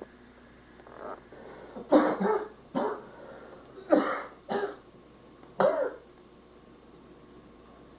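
A man coughing and clearing his throat, about six harsh bursts in quick succession, the loudest around two and four seconds in.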